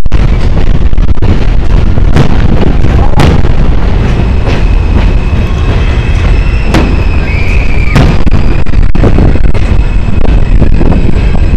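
Fireworks display: a string of sharp bangs from aerial shells launching and bursting, about one a second, over a constant loud low rumble. A steady high whistling tone comes in about four seconds in and runs on.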